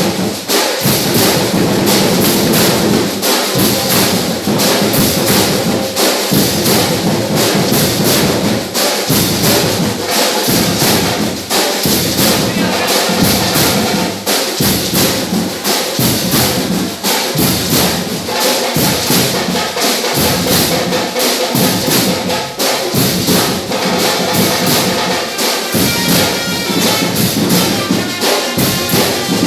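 Fanfarra marching band playing: drums and cymbals keep a steady marching beat under brass instruments.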